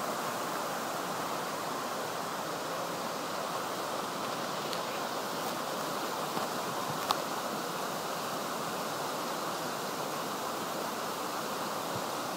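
Small mountain waterfall cascading over rock ledges: a steady rush of falling water. A single brief click sounds about seven seconds in.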